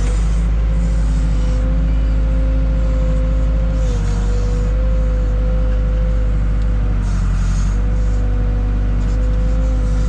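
Case 580K backhoe's diesel engine running at raised throttle while digging, with a steady whine over the engine rumble. The whine sags slightly in pitch about four seconds in and again near eight seconds.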